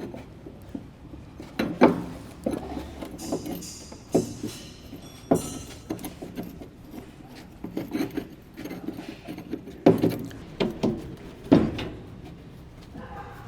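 Irregular knocks, taps and clinks of hand tools and pipe fittings being handled during plumbing installation, with several sharp louder knocks.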